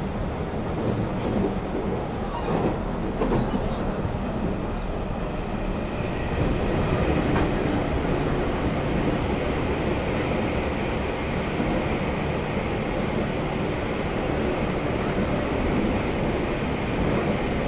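A JR West 221-series electric train running at speed, heard inside the car: a steady rumble of wheels on rail with a few clicks about two to three seconds in. The noise gets louder about six seconds in as the train runs into a tunnel.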